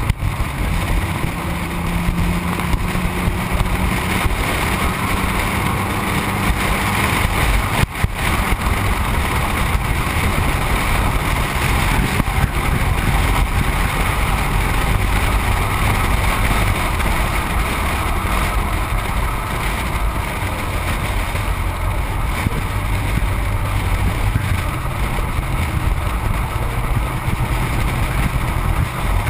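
Road noise from a vehicle driving at speed, heard from a camera mounted on its outside: steady rush of tyres on pavement and wind over the microphone, with the engine running underneath. A single short knock about eight seconds in.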